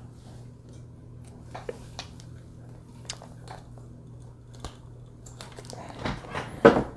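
Handling noise: scattered small clicks and rustles as a phone on a selfie stick is moved about and clothing brushes a clip-on lapel mic, with a couple of louder knocks near the end over a faint steady low hum.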